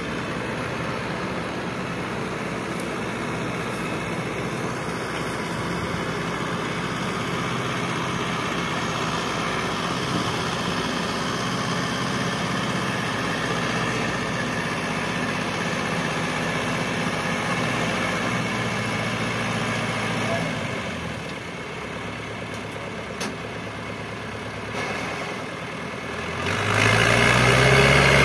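Massey Ferguson 385 tractor's four-cylinder diesel engine running steadily as it hauls a loaded trolley through deep mud. About two seconds before the end it revs up sharply and turns much louder, rising in pitch as it labours at full throttle.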